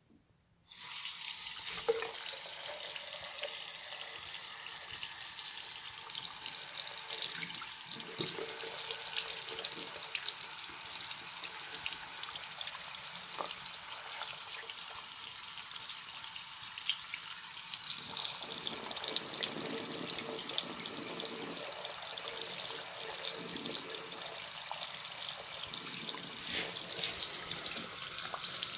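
Bathroom sink tap turned on under a second in, then water running steadily from the faucet, pouring over a 3D-printed plastic Coanda screen filter held under the stream and splashing into the basin. The flow gets a little louder about halfway.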